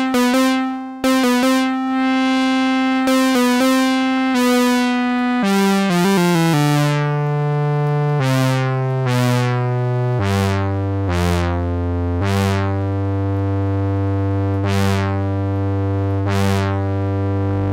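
Cherry Audio Octave Cat software synthesizer playing held notes that step down in pitch into the bass, the later notes each starting bright and quickly mellowing.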